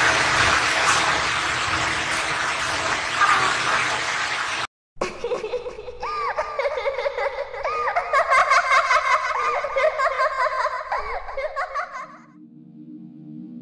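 Loud, steady hiss for about four and a half seconds, then a brief cutout. After that comes high-pitched, wavering laughter like a child's giggling for about seven seconds, and a low, steady drone near the end.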